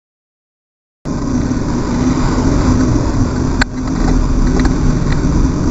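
A car passing close to a bicycle, heard through the bike-mounted camera's microphone over the rumble of riding. Silence for about the first second, then the sound cuts in abruptly, with one sharp click near the middle.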